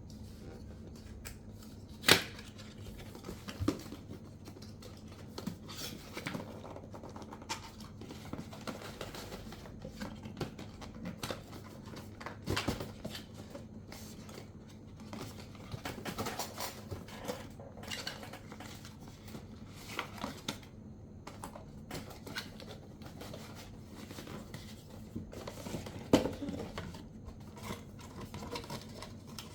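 Packaging of a new microphone being handled and opened by hand: scattered clicks, taps, scrapes and rustles, with a sharp knock about two seconds in and another near the end.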